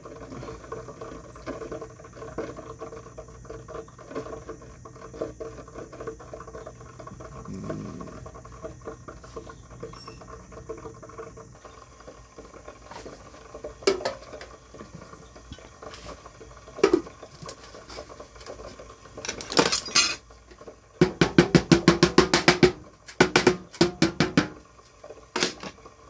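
Clinks and rattles of small metal parts and tools on a workbench beside a stainless ultrasonic cleaner tank, over a faint steady hum. The clinks are scattered at first, then bunch together in the second half, with a quick run of about a dozen just after the middle.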